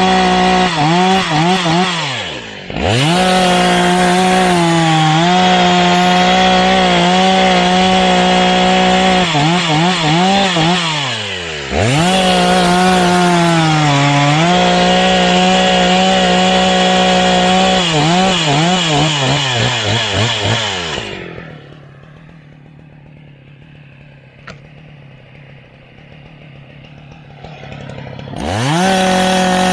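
Husqvarna 181 SE two-stroke chainsaw cutting through a pine log at full throttle, its pitch dipping and rising again as the throttle is eased and reapplied between cuts. About twenty seconds in it drops to a quiet idle for several seconds, then revs back up near the end.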